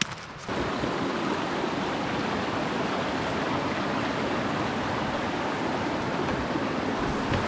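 Creek water rushing steadily, starting abruptly about half a second in.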